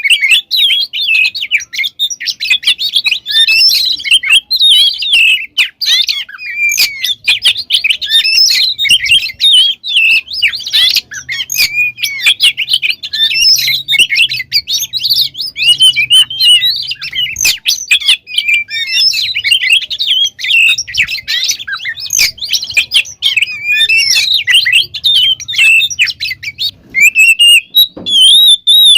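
Oriental magpie-robin (kacer) singing without pause: a fast, varied stream of clear whistles, chirps and trills packed with mimicked phrases of other birds.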